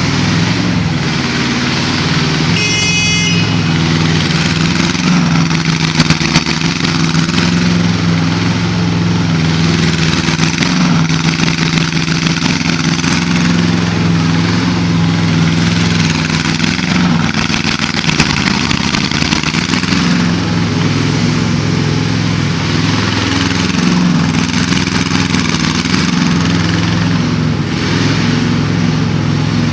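Small engine of an 800 kg mini excavator running steadily, its pitch shifting slightly now and then. There is a brief high squeal about three seconds in.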